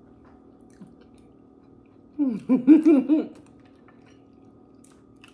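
A woman eating crab legs hums a loud, wavering "mmm" of enjoyment through a full mouth for about a second, starting about two seconds in. Soft chewing is heard around it.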